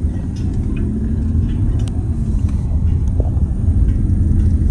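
Low, steady rumble of engine and road noise heard inside a moving vehicle's cabin.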